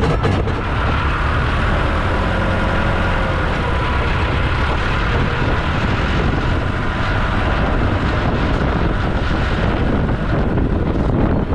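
Diesel farm machinery running steadily under load, a low engine rumble with a steady whine above it.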